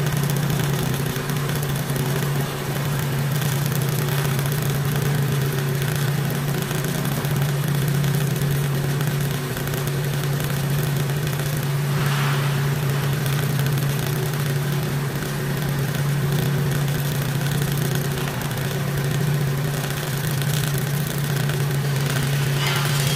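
TIP TIG welding arc on 904 stainless steel under argon, running continuously: a steady hissing, crackling arc noise over a constant low hum.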